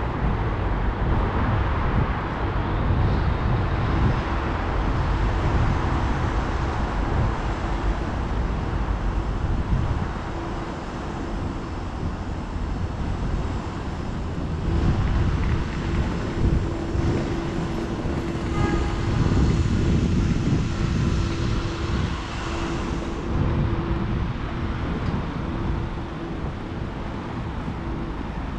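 Road traffic on a wide city street: cars and vans driving past in a steady wash of engine and tyre noise that swells twice, with a steady low hum coming in about halfway through.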